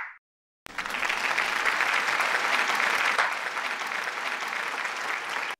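Applause from many hands clapping together, starting about half a second in and cutting off abruptly near the end.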